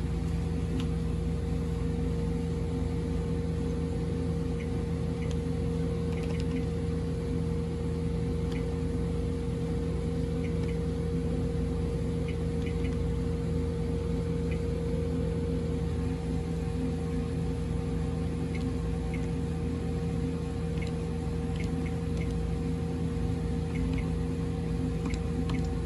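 A steady hum with several held tones, with scattered faint clicks as the selection keypad buttons of a USI combo vending machine are pressed to set item prices.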